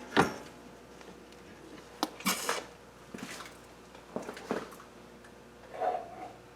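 A few scattered light clinks, knocks and rustles of metal engine parts and tools being handled on a work surface.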